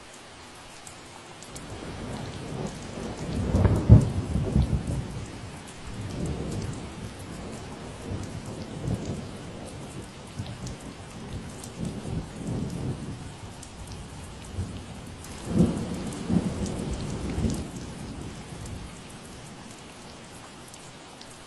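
Steady rain hiss with thunder rumbling in long rolling waves, loudest about four seconds in and again near the middle-to-late part, dying away near the end.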